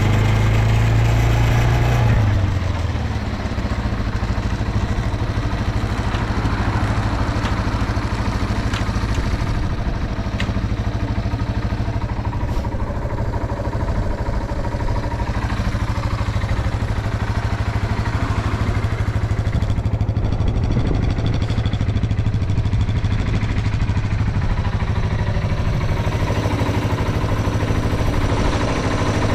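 Yamaha TW225's single-cylinder four-stroke engine idling steadily. It is slightly higher for the first two seconds or so, then settles. It runs evenly, without abnormal noises by the seller's account.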